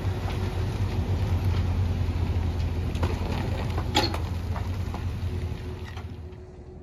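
A vehicle engine running at low speed with light rattles, a sharp metallic clack about four seconds in, and the engine sound falling away near the end.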